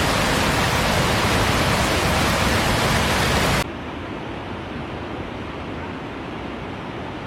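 Steady rush of water, loud and even, that drops off sharply a little over three seconds in to a quieter, duller rush.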